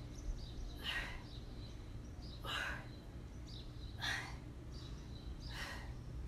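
A woman's sharp exhales in time with push-up reps, four breaths about a second and a half apart, over a low steady hum.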